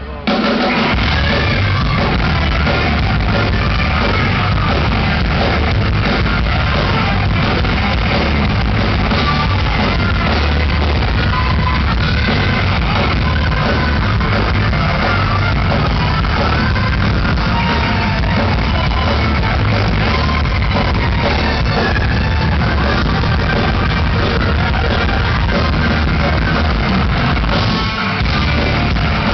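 Rock band playing live at full volume in a concert hall: distorted electric guitar, bass and drums, with vocals. The full band comes back in at once right at the start after a brief drop, and dips briefly near the end.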